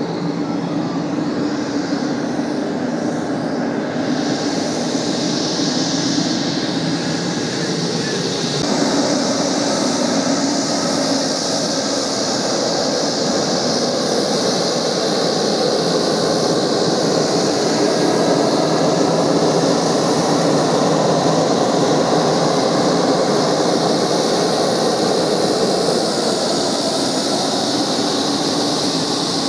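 Pilatus PC-12's single Pratt & Whitney PT6A turboprop engine and propeller running at taxi power as the aircraft taxis, a steady noise that grows louder as it comes nearer.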